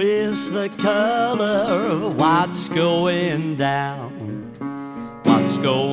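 1932 National Triolian steel-bodied resonator guitar played without vocals, its notes gliding and wavering in pitch, with new phrases starting every second or so.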